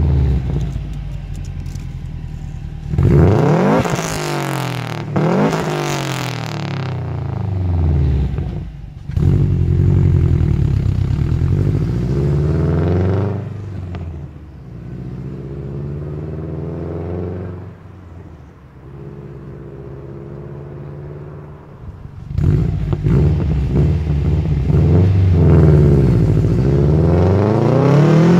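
Subaru Impreza WRX hatchback's turbocharged flat-four through an SPT aftermarket exhaust. It is revved sharply several times while standing, then pulls away and drives at part throttle with the engine note rising and falling through the gears. About 22 seconds in it goes to full throttle, loud and climbing in pitch.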